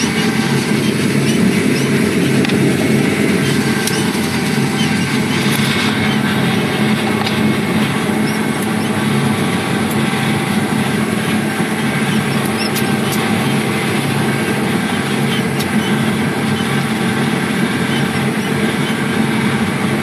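John Deere 3520 sugar cane harvester running steadily while cutting cane: a loud, unbroken engine and machinery drone.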